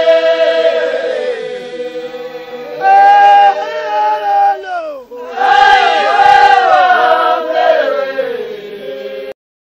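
A group of voices chanting together in long held notes that glide between pitches, in a few phrases, stopping abruptly near the end.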